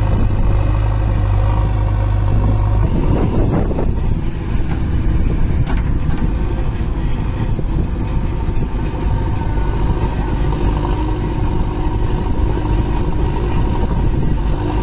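Diesel engine running steadily at idle, then, after a change about three seconds in, a JCB 3DX backhoe loader's diesel engine working as its bucket scoops soil and tips it into a tractor trolley.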